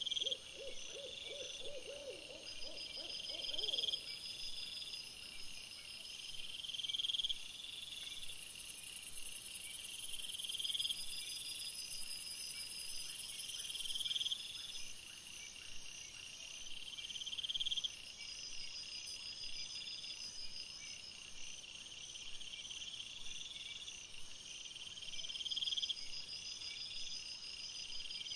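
Crickets chirping in a steady repeating pattern through the night, with a short run of rapid low pulsing calls in the first few seconds and a steady high hiss in the middle.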